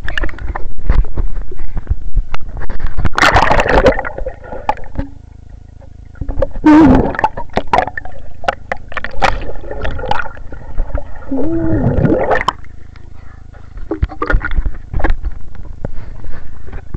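Pool water splashing and gurgling close on the microphone as the camera dips in and out of the water, in irregular bursts with a lull about five seconds in.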